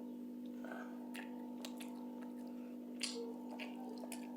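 Scattered soft clicks and smacks of someone eating rice and fried catfish, a handful of them, over a steady background hum of a few fixed tones.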